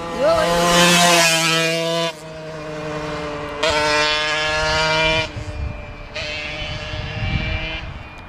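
Small motor scooter engine passing at full throttle, its pitch holding steady and then shifting several times as it revs. It fades away near the end.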